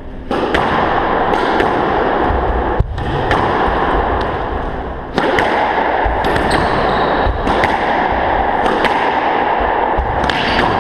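Squash rally: a squash ball cracking off racquets and the court walls, a sharp hit every second or so, over a constant loud background hiss.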